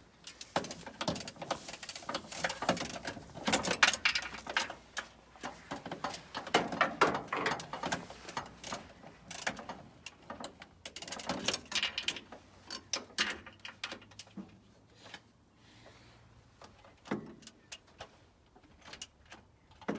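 Metal hand tools and bolts clinking, clicking and knocking in irregular bursts, busiest in the first half and thinning out after about fourteen seconds.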